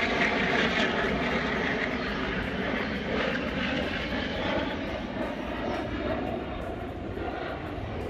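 Engine noise of an aircraft flying overhead, a steady rushing drone with a faint hum in it that slowly fades toward the end.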